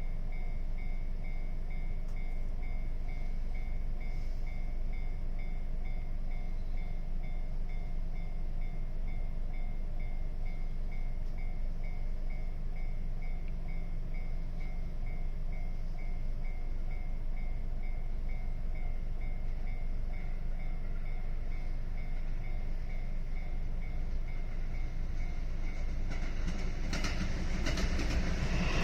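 Railway level-crossing warning bell ringing steadily, a repeating electronic ding, over a low rumble. Near the end a train arrives at the crossing, its rumble and clatter growing louder.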